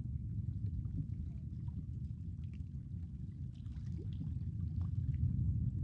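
Distant Falcon 9 rocket, its nine first-stage Merlin engines heard as a low, continuous rumble after the launch, growing a little louder near the end.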